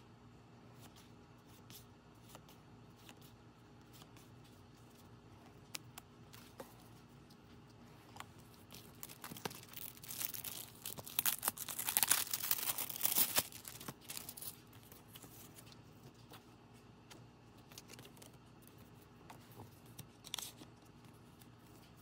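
A plastic packet crinkling and tearing open in a noisy crackling burst lasting about four seconds, beginning about ten seconds in. Before it there are soft clicks of cards being handled, and near the end there is a short rustle.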